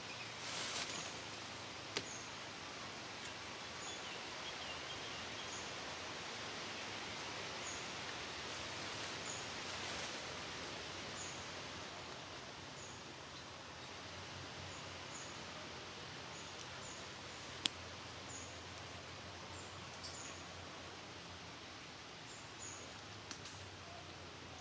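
Forest ambience: a steady hiss with a short high chirp repeating every second or so, brief rustles of leaves, and two sharp clicks.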